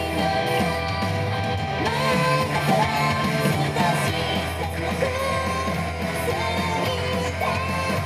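Upbeat J-pop idol song with electric guitar and sung vocals, playing steadily.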